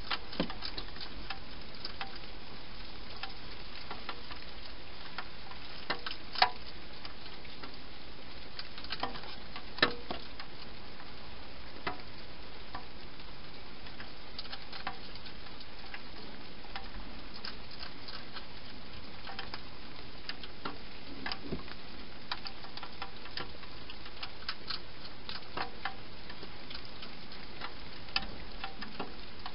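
Wild hedgehog eating inside a plastic feeding box: irregular crunching and smacking clicks over a steady hiss, with two louder clicks.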